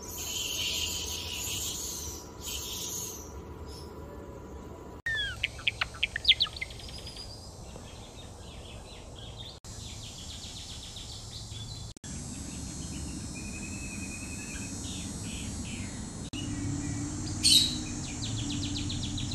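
A high hiss for the first few seconds, then a pet Java sparrow chirping: sharp sliding chirps, strings of quick high clicking notes, and one louder call near the end.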